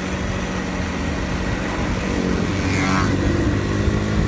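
Honda Super Cub 50's small single-cylinder four-stroke engine running while the bike rolls downhill with almost no throttle, over wind noise on the microphone. The engine sound gets louder about two seconds in.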